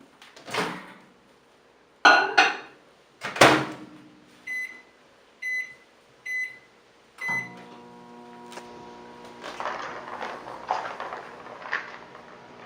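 Magic Chef microwave oven: several loud clacks of the door being opened and slammed shut, then four short keypad beeps about a second apart, after which the oven starts running with a steady hum and a few light clicks and rattles.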